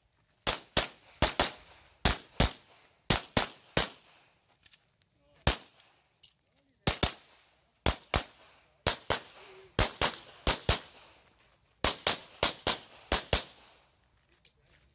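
CZ Shadow 2 pistol fired rapidly during a practical shooting stage: sharp shots, mostly in quick pairs, in strings separated by short pauses as the shooter moves between positions, with one longer gap about halfway through.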